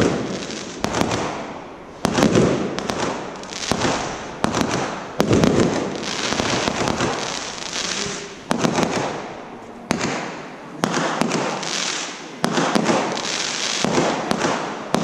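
Aerial fireworks going off one after another, a sharp bang every second or two, each followed by a crackling tail that fades away.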